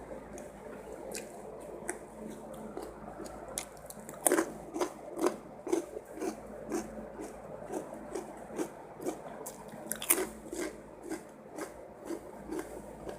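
Close-up mouth sounds of chewing spicy fried rice with petai beans: wet, squishy chews about two a second settle into a steady rhythm about four seconds in, with a couple of sharp crunchy clicks along the way.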